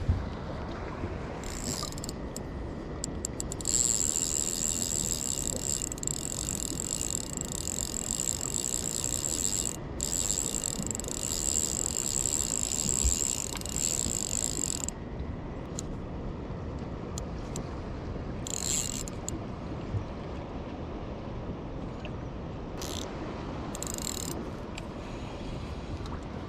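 Spinning reel's drag buzzing as line is pulled off it under load from a hooked fish, in one long run of about eleven seconds, then three short bursts.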